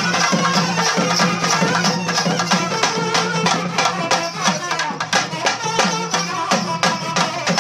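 Loud live folk music: fast, dense hand-drumming with a melody instrument playing over a held low drone.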